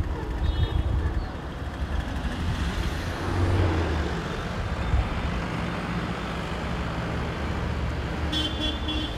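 Steady outdoor rumble of distant engines, with a short high beep near the end.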